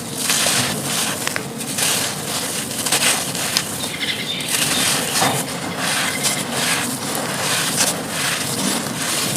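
Dry, brittle crumble pieces being crushed and crumbled, a dense, unbroken run of crisp crackling and crunching with many small sharp snaps.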